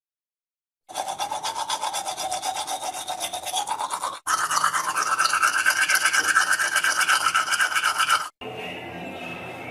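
Toothbrush scrubbing teeth in fast back-and-forth strokes, about five a second, the pitch of the scrubbing shifting as the brush moves around the mouth. It stops briefly about four seconds in and ends a little over a second before the end, giving way to a quieter sound.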